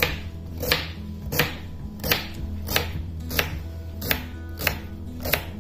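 Kitchen knife slicing a radish into rounds on a bamboo cutting board, each cut ending in a sharp knock on the board, about nine in steady succession. Background music plays underneath.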